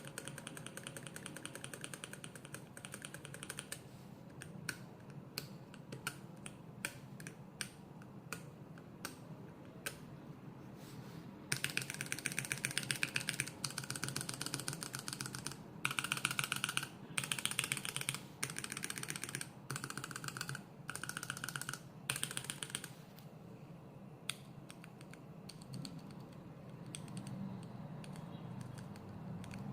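Stock, unlubricated mechanical keyboard switches being pressed and released in a switch tester, each press a sharp clack. Single presses come spaced apart at first, then several fast runs of rapid repeated presses, each a second or two long, between about 11 and 23 seconds in, then single presses again.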